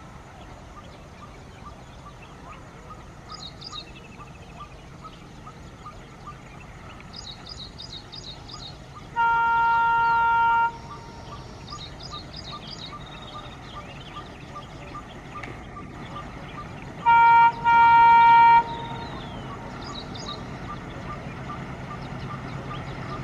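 Diesel locomotive horn sounding on an Indian Railways line: one long blast about nine seconds in, then a short blast followed by a longer one near seventeen seconds. Birds chirp in between, and a low engine rumble grows louder near the end as the train approaches.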